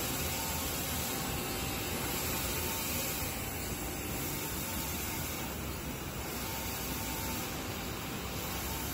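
P2200e wide-format roll printer running, with a steady machine hum and hiss as paper feeds over its rollers. A higher hiss swells and fades about every two seconds.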